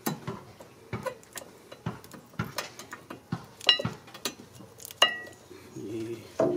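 Rear brake pads and their metal clips on a 2017 Mitsubishi RVR clicking and clinking as they are fitted by hand into the caliper bracket. The light knocks are irregular, with two ringing metallic clinks, one about halfway through and one about five seconds in.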